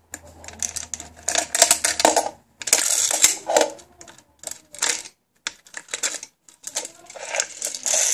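Coin-operated dispensing mechanism of a Jelly Belly mini jelly bean machine being turned by hand: a run of irregular clicks and rattles as the coin and jelly beans move inside.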